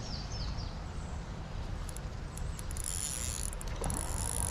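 Spinning reel being cranked to retrieve line, over a low rumble. A bird chirps a few times at the start, and a high steady insect buzz comes in about halfway.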